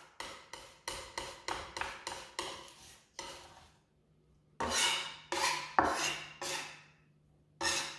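Large kitchen knife blade scraping and pressing a garlic clove into a paste on a wooden cutting board. It starts as a quick run of short scrapes, about three a second, then after a brief pause comes a handful of longer, slower strokes.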